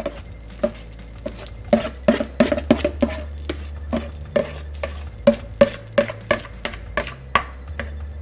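A metal spoon scraping batter out of a mixing bowl, knocking against the bowl in quick taps, two to four a second, each with a short ringing note, as the batter drops into a pan of hot browned butter and sizzles.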